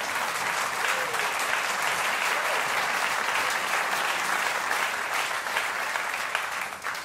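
Theatre audience applauding: dense, steady clapping that dies away at the very end.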